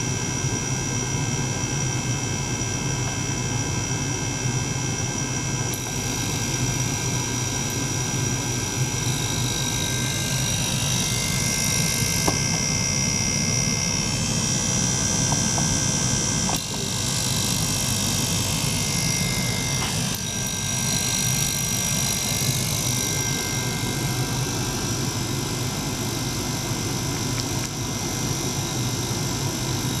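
Small liquid-circulation pump and ultrasonic cleaning bath running together: a steady low hum under hiss, with high steady whining tones that brighten and shift in pitch through the middle stretch.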